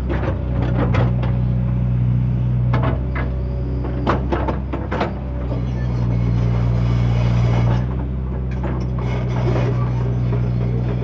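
JCB excavator's diesel engine running steadily under work, with several sharp knocks from the machine about three to four and a half seconds in.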